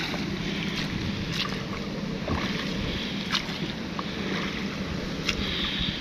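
Wooden rowboat being rowed with a pair of oars: a short knock from the oars in their locks about every two seconds, over a steady wash of water and wind noise.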